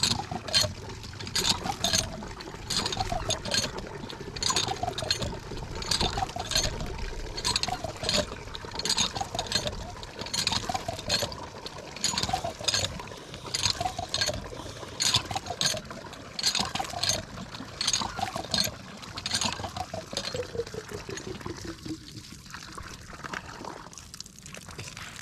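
Cast-iron hand water pump being worked by its long handle: a clank about once a second with each stroke, each followed by a short tone falling in pitch, over water pouring from the spout. The pumping stops near the end.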